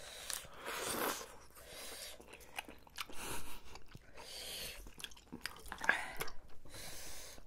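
Close-miked eating of spicy tteokbokki and fried snacks: wet chewing and biting with small crunches and mouth clicks, and about a second in a hissing suck of air through the lips against the heat of the sauce.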